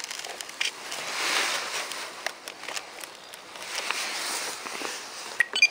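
Light clicks and rustling as hands fit the battery and wiring into a foam RC plane's fuselage, over a hiss of wind on the microphone that swells twice.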